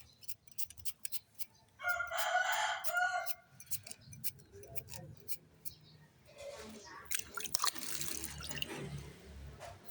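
A loud, pitched animal call lasting about a second and a half, starting about two seconds in, over scattered light clicks.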